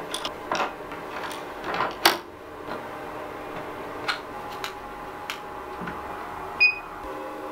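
Hard metal clicks and knocks of a parting-blade holder being handled and seated in a lathe's quick-change tool post. There are about half a dozen sharp clicks, the loudest about two seconds in, and a short high squeak near the end.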